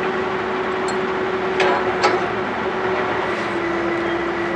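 Truck-mounted borewell drilling rig running steadily, its engine note dipping slightly in pitch a little past the middle. Two short metallic clanks come about one and a half and two seconds in as a steel drill pipe is handled and hoisted.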